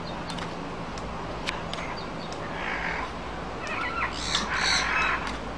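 A couple of short, rough animal calls close together about four seconds in, with a fainter one a little before, over steady outdoor background noise and a few light clicks.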